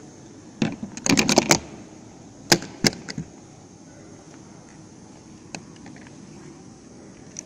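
Clicks and rattles of a small plastic control box and its wires being handled. There is a quick burst of clicks about a second in, then two sharp clicks and a few faint ticks.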